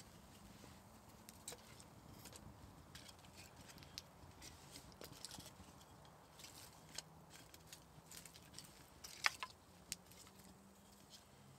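Small wood campfire crackling faintly while split kindling and sticks are laid onto it: scattered light clicks and snaps, with one sharper snap about nine seconds in.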